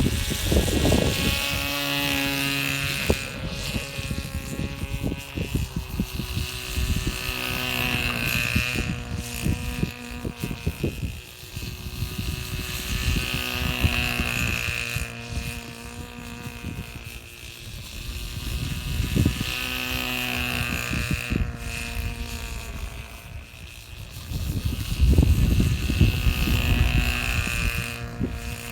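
Lawnmower engine running steadily as the tethered mower circles on its own, its sound swelling and fading about every six seconds as it passes.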